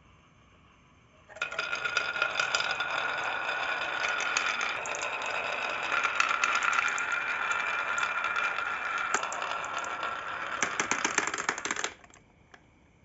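Marbles rolling and clattering down a marble run track: a dense stream of clicks over a steady rolling hum that starts about a second in and stops abruptly near the end.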